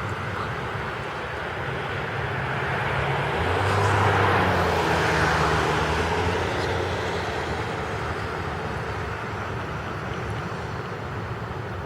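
Steady hiss of rain, with a vehicle passing on the wet road that swells to its loudest about four to six seconds in and then fades.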